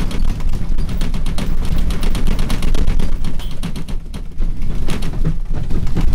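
Earthquake sound effect: a deep rumble under rapid crackling and rattling, easing briefly about four seconds in before building again.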